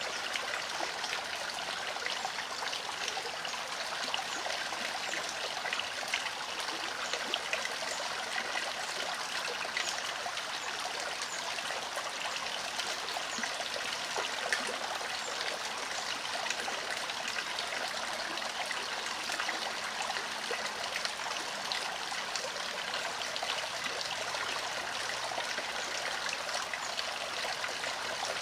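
Shallow rocky creek trickling and babbling over stones, a steady run of water with many small splashes.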